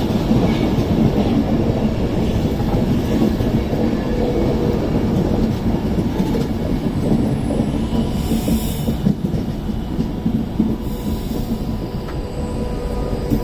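Class 390 Pendolino electric train running alongside the platform as it comes into the station: a steady rumble of wheels on rail with a held electrical hum, easing off slightly.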